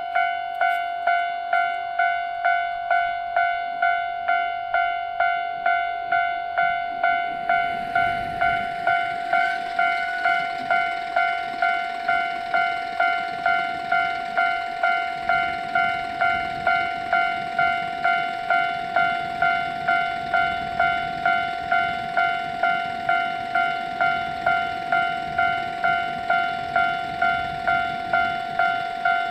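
Japanese level-crossing alarm ringing its electronic 'kan-kan' warning bell, an even, repeating tone a little under two rings a second. A broad rushing noise joins the ringing about eight seconds in.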